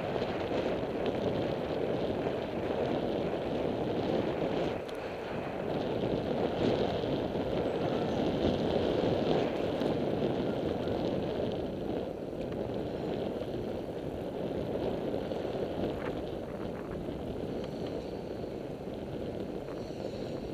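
Steady wind rushing over the microphone of a camera moving along a street.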